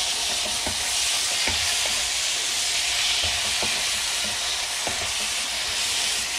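Jambalaya of smoked sausage, chicken and rice sizzling steadily in a pot as it is stirred, with irregular light knocks and scrapes of the spoon against the pot.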